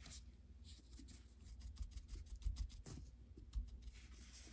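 Faint, quick, irregular tapping and light rubbing: a cosmetic wedge sponge dabbing paint onto the edges of a small 3D printed model part.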